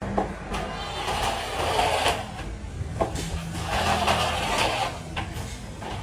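Metal screed bar worked back and forth through wet concrete, a wet scraping swish in long strokes about every two to three seconds, over a steady low rumble.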